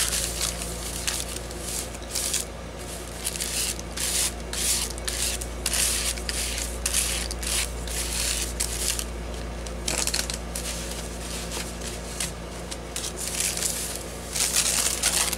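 Waxed deli paper crinkling and scraping in many quick, uneven strokes as it is rubbed and pressed by hand and with a plastic card, over a steady low hum.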